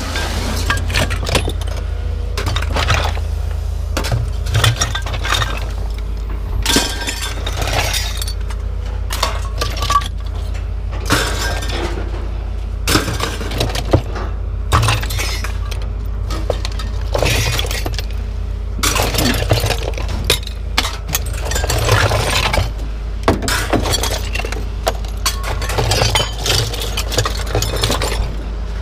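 Pieces of scrap metal being unloaded and tossed onto a pile, a clattering run of irregular clanks and crashes, over a steady low rumble.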